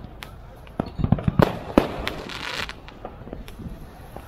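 Fireworks going off: a few scattered bangs, then a rapid run of bangs and cracks from about a second in to nearly three seconds, with a brief crackle near the middle of it.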